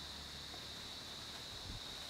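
Outdoor ambience: a steady high-pitched insect drone over a low hiss of wind, with one soft low thump near the end.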